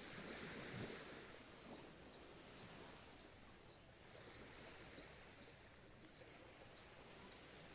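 Faint, steady wash of ocean surf in a lull between waves, swelling slightly about a second in, with scattered faint short high chirps.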